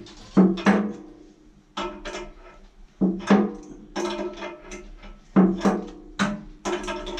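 Background music with a steady percussive beat: pairs of sharp pitched knocks repeating about once a second.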